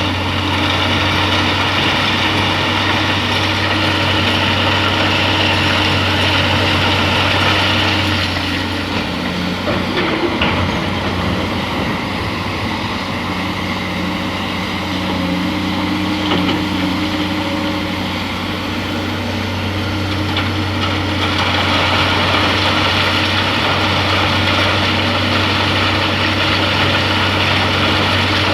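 Excavator's diesel engine running steadily. It works harder for the first several seconds and again over the last several, easing off in between.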